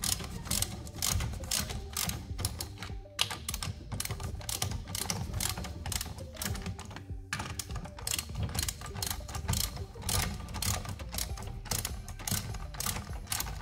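Hand socket ratchet clicking rapidly as it is worked back and forth, running in and snugging the wheel bolts on a car wheel. Background music with a steady low beat plays under it.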